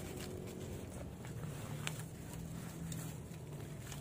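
Newspaper packing and plastic wrap crinkling and rustling in short scattered crackles as wrapped airgun chambers are lifted and moved, with one sharper crackle about halfway through. A steady low rumble runs underneath.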